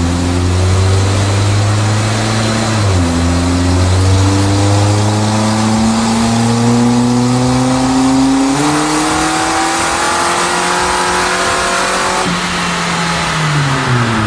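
1994 Geo's 1.8-litre 16-valve four-cylinder engine making a wide-open dyno pull on a 60-shot of nitrous. Its pitch climbs, drops back at a gear shift about three seconds in, climbs again, then falls away near the end as the throttle closes.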